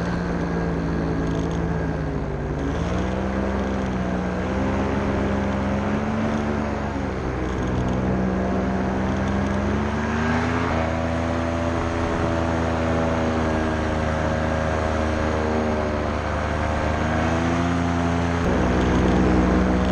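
Paramotor engine and propeller running in flight, the pitch rising and falling as the throttle is worked, highest in the second half.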